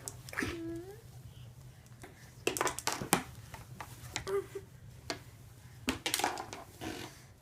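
A puppy moving about and playing: scattered rustles and light clicks and knocks, with a brief whine near the start and a short squeak a little past the middle.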